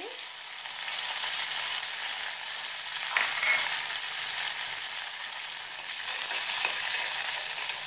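Curry leaves and roasting dals sizzling in hot oil in a steel kadhai: a steady high hiss, the tempering (tadka) stage of the cooking. A steel ladle stirs and scrapes the pan lightly a couple of times.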